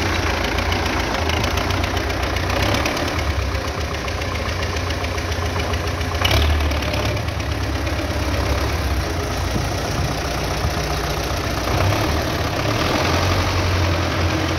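1984 MTZ-80 Belarus tractor's four-cylinder diesel idling steadily, with a single sharp knock about six seconds in.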